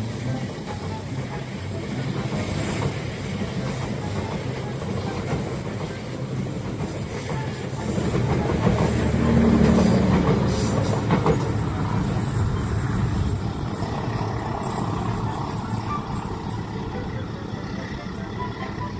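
A train running by on the track, a steady rumble of engine and wheels that swells to its loudest about halfway through and then eases off.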